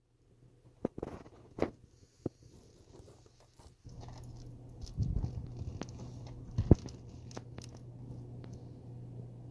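Scattered soft knocks, clicks and rustles close to the microphone, with a low steady hum coming in about four seconds in; the loudest knock falls near the end.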